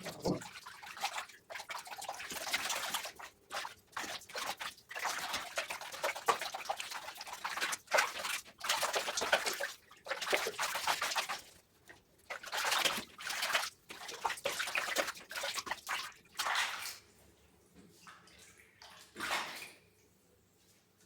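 Water running and splashing in repeated bursts of a second or two during a cat's bath, with short breaks between. The bursts die away about 17 seconds in, with one more brief splash a couple of seconds later.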